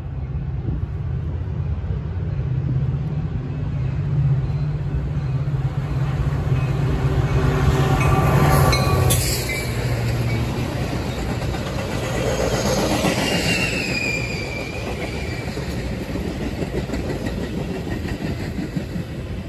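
Metra diesel-hauled commuter train passing. The locomotive's engine hum builds and peaks about nine seconds in as it goes by. The double-deck coaches then rumble past, with a brief high squeal a few seconds after the locomotive.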